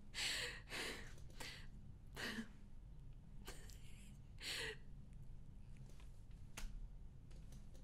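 A woman's quiet, breathy, mostly silent laughter: several short puffs of breath through her nose or mouth over a few seconds, then a faint click near the end.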